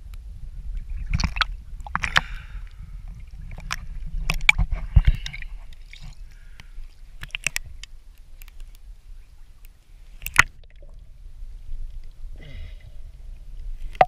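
Water sloshing and splashing close to the microphone as someone moves through a cenote pool, over a low rumble, with irregular sharp splashes and knocks. The sharpest comes about ten seconds in.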